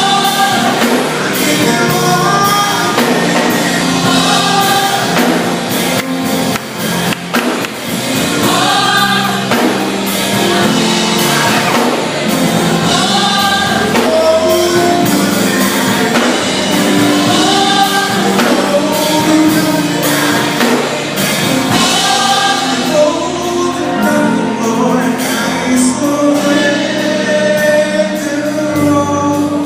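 Gospel worship band playing with a group of singers, voices held and sliding over sustained bass and keyboard-like tones, with percussion hits throughout.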